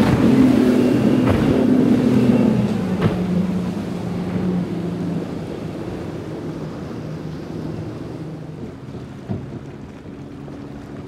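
Outboard motor of a center-console boat running at speed as it passes and draws away, its engine tone falling in pitch and fading, over the rush of spray and wind on the microphone. Near the end a steadier engine tone from another small outboard boat comes in.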